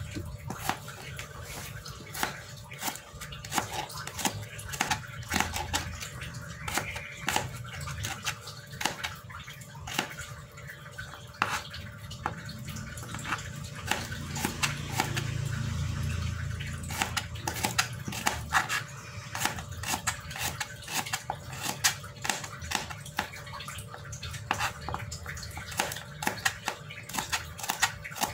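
Kitchen knife slicing garlic cloves on a plastic cutting board: an irregular run of light, sharp taps, one or two a second, as the blade meets the board. A low rumble swells and fades about halfway through.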